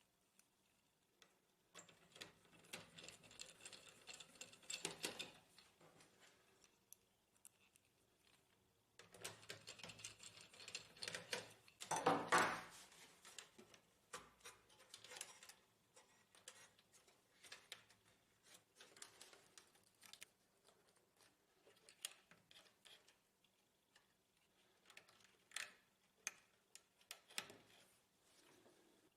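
Faint clicking and rattling of hands fitting parts and screws inside a disassembled HP LaserJet printer, with two busier stretches of dense clicks a couple of seconds in and around the middle, then scattered single clicks.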